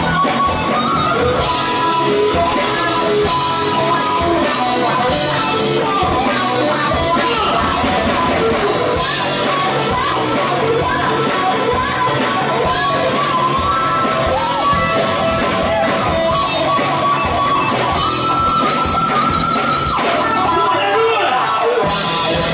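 Live rock band playing loud: distorted electric guitars, bass and drums, with vocals over the top. Near the end the cymbals drop out for a moment, then the full band comes back in.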